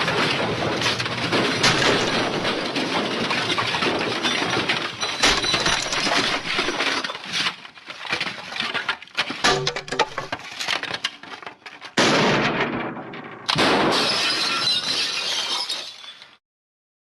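The 'MGM elephant smash' crash sound effect: a long, dense clatter of glass and debris breaking and smashing. It breaks off at about 12 seconds, resumes a second later, and cuts off suddenly near the end.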